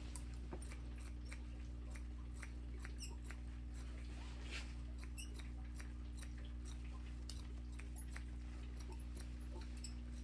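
Electric hair clipper running with a steady hum as it cuts hair, with many small irregular clicks and snips over it.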